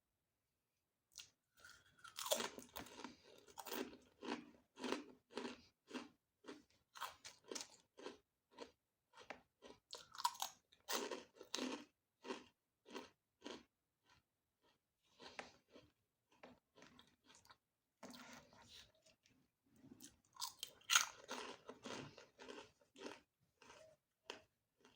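Close-up chewing of crunchy food: rapid crisp crunches, a few a second, that start about a second in, ease off for a while midway, then pick up again.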